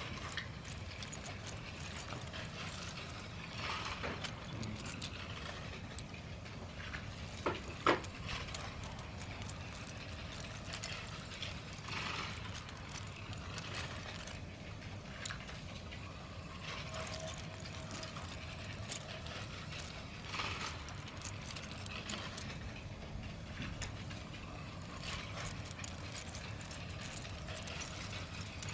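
LEGO train running on plastic track, its wheels clicking and clattering irregularly over the rail joints against a steady low noise. Two sharp clicks about seven and a half seconds in are the loudest sounds.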